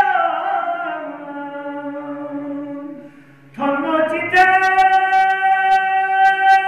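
Men's voices singing a Balti qasida unaccompanied, with long drawn-out notes. One held note slides down and fades about three seconds in, and after a short breath a new note comes in strongly and is held.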